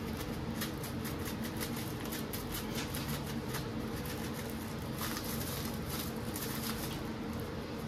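Dry seasoning shaken from a plastic bag pattering onto raw chicken pieces in a bowl, heard as many faint, irregular small ticks along with the bag's crinkle, over a steady low hum.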